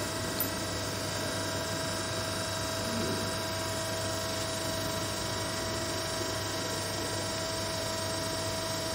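Busbar punching machine running idle: a steady hum with a constant mid-pitched tone, no punch stroke.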